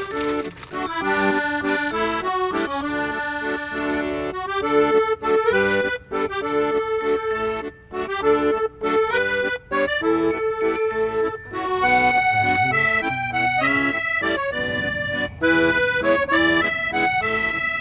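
Background music led by an accordion playing a bright, even melody.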